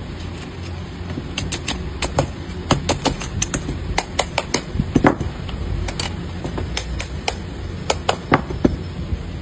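Irregular sharp metallic clicks and clinks, several a second, from small metal parts being handled and tapped, over a steady low hum.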